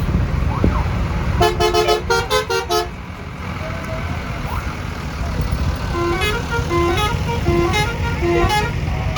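Bus basuri horn, a multi-tone musical air horn, playing a quick run of notes, then a few seconds later a second tune of short notes stepping up and down, over the low rumble of bus engines.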